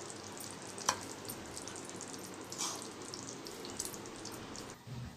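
Hot chicken gravy sizzling faintly in an aluminium pan while a serving spoon stirs and scoops it into a steel bowl, with a sharp clink of the spoon on the metal about a second in and a couple of softer knocks later.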